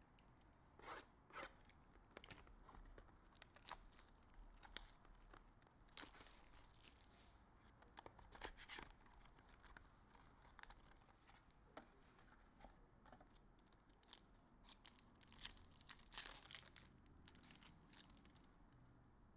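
Faint tearing and crinkling of plastic wrap as a sealed mini box of trading cards is opened, in scattered crackles and rustles with small clicks of handling the packaging.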